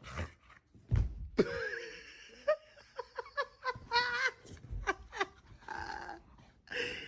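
A thump about a second in, then an animal calling in a series of pitched, wavering cries.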